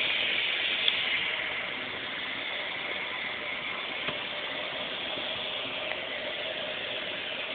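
Bathroom sink tap running, a thin stream of water splashing steadily into the basin.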